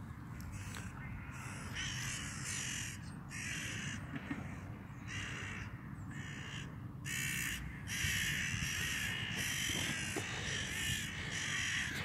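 A flock of crows cawing over and over, their harsh calls overlapping in a racket that grows denser and a little louder about halfway through.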